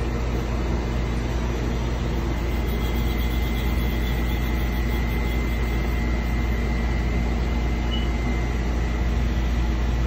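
Steady low machine hum of a powered-up Haas TL-1 CNC lathe and shop equipment, with no cutting heard, and a faint high whine for a few seconds in the middle.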